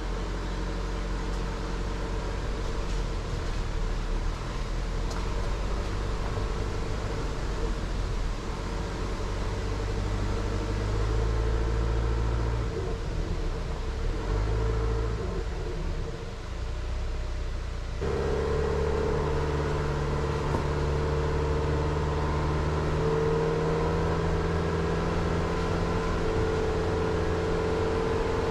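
A Jeep Renegade driving on a wet road: steady engine hum with tyre and road noise. The engine note changes suddenly about two-thirds of the way through.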